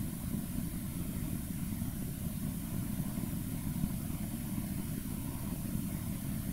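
Steady low rumble with a faint hiss above it and no speech, even and unchanging.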